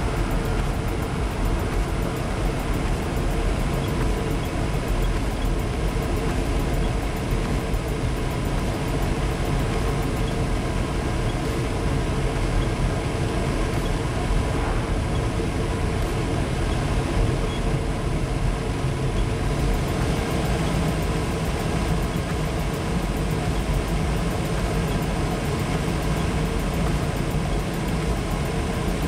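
Amano inverter dust collector's fan running steadily, a constant rushing hum with faint steady tones; the sound shifts slightly about two-thirds of the way through.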